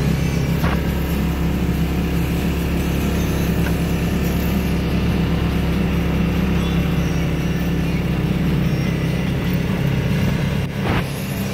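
Side-by-side off-road vehicle's engine running steadily as it rolls slowly along.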